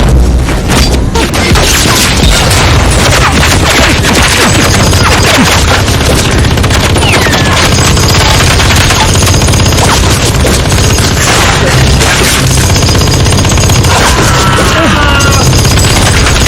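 Loud, continuous film-soundtrack gunfire: rapid automatic fire with booms and impacts mixed in, without a break.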